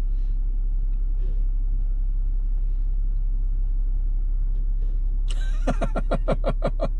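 2021 Jeep Wrangler Unlimited's 3.6-litre V6 running steadily, a low rumble. Near the end comes a quick run of about ten short pulses, roughly six a second.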